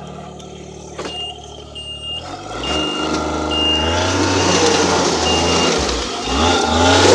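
Snowmobile engine revving up as the sled is driven onto a trailer, rising in pitch and growing loud toward the end. A short electronic beep repeats about once a second, like a reverse alarm.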